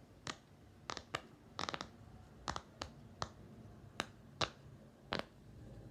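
Bubbles of a silicone pop it fidget toy being pressed through one by one: about a dozen sharp pops at an uneven pace, some in quick pairs.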